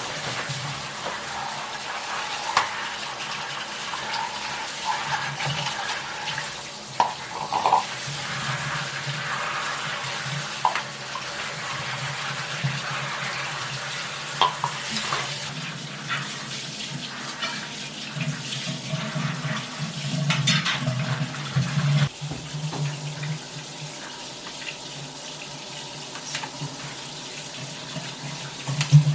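Water running from a tap into a sink, with a few light knocks and clicks along the way.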